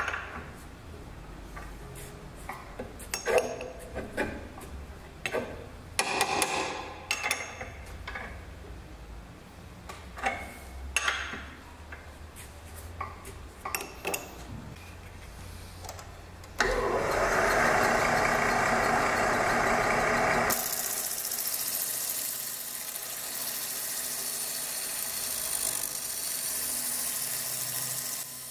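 Wood lathe running, with a hand gouge cutting a spinning wooden disc. A loud, rough scraping cut starts about halfway through and after a few seconds gives way to a thinner, steady hiss. Before that there is a low hum with short, scattered scrapes and knocks.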